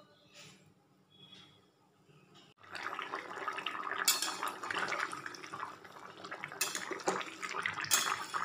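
Quiet for about the first two and a half seconds, then a pan of taro curry boiling hard in a kadai, with dense bubbling and popping. A metal spatula strikes the pan three times.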